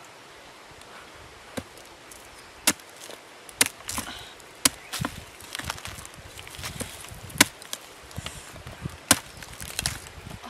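Machete blade chopping into a rotten tree stump: a string of sharp, irregular strikes, about one a second, with softer knocks between.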